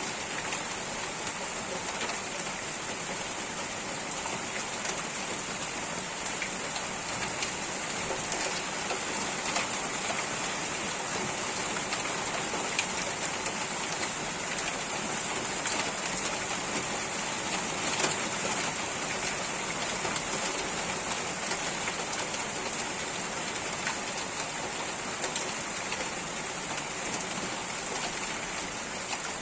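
Steady rain falling on surfaces, a continuous hiss dotted with the ticks of individual drops.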